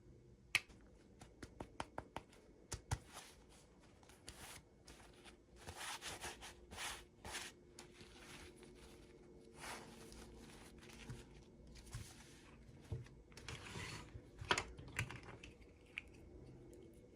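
Toy packaging being handled and opened by hand: a run of sharp clicks and taps, then a series of short rustling, tearing sounds of wrapping.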